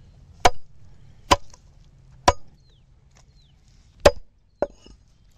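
Country chicken being chopped into pieces with a blade: five sharp chops, the first three about a second apart, then a pause, then two more in quick succession.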